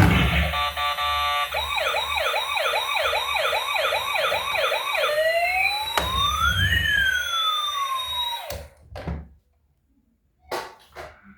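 Electronic toy emergency-vehicle siren: a short steady tone, then a fast yelp of about three rising sweeps a second, then a slower wail with tones rising and falling, cutting off suddenly. A few short clicks or knocks follow.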